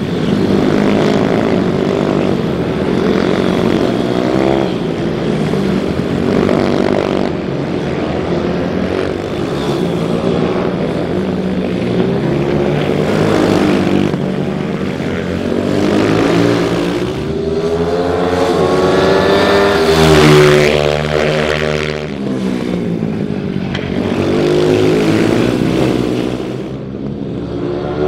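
Several small racing minibikes' engines revving hard and passing one after another, their pitch rising and falling as they accelerate out of corners. The loudest pass comes about twenty seconds in.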